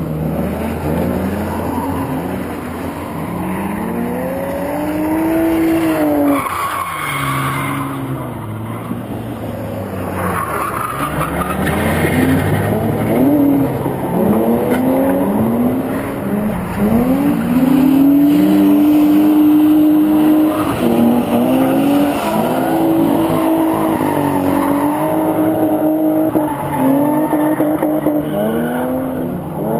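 Drift car's engine revving hard, its revs climbing and dropping again and again, with tyres squealing as the car slides sideways. The revs hold high for a few seconds a little past the middle.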